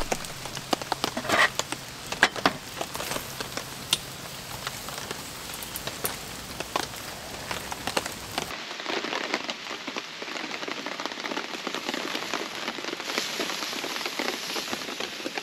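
Wood campfire crackling, many small sharp pops over a steady hiss, with a few louder pops in the first few seconds.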